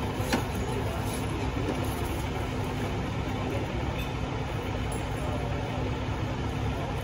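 A heavy vehicle engine idling steadily, a low even drone with a constant hum. A single sharp click about a third of a second in.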